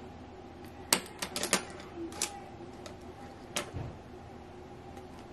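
Light clicks and clacks of makeup brushes and products being picked up and moved about on a table in a search for a brush: a quick cluster about a second in and one more click past halfway.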